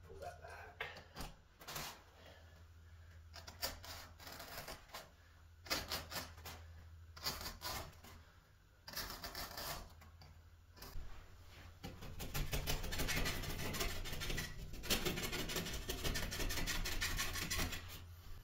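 Utility knife cutting through carpet along a guide strip at the tile edge: scattered short scratchy strokes, becoming a denser, louder run of rasping over the last six seconds. A low steady hum runs underneath.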